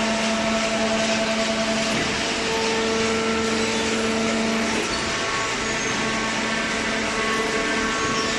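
Small hydraulic cardboard baler running: a steady motor and pump hum with a held whine, whose tone changes about two seconds in and again about five seconds in.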